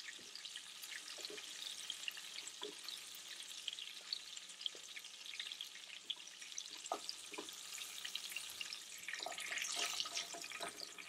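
Chicken drumsticks frying in shallow oil in a nonstick pan: a soft, steady sizzle with scattered crackles. A few light knocks of a wooden spatula against the pan come as the browned pieces are lifted out.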